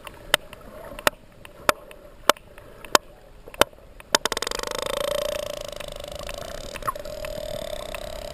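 Sperm whale clicks heard underwater: single sharp clicks about every two-thirds of a second, then, about four seconds in, a rapid run of clicks close together like a creak, over a faint steady hum.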